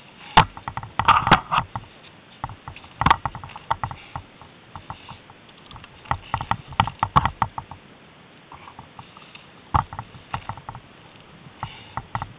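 Irregular clicks, knocks and rustles of handling close to the microphone, in uneven clusters, with no engine running.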